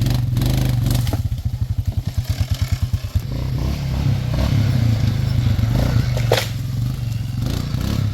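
Suzuki Vinson 500 ATV's single-cylinder four-stroke engine running loud, falling to a slower pulsing chug between about one and three seconds in, then steadying again. A few knocks sound over it, the sharpest about six seconds in.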